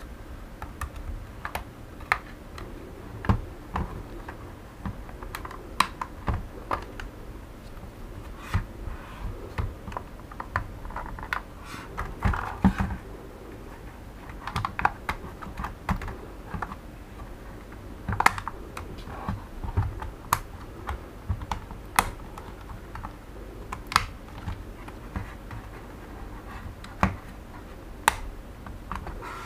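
Sharp plastic clicks and creaks at irregular intervals, about one every second or two, from the snap-fit plastic shell of a Xiaomi Mi Drone 4K remote controller being pried apart by hand. A short scraping rub of plastic comes about twelve seconds in.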